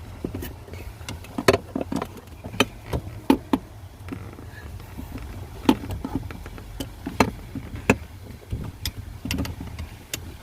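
Sharp, irregular clicks and knocks of plastic and metal as the throttle cable end and its clip are worked free at the van's throttle pedal, over a steady low hum.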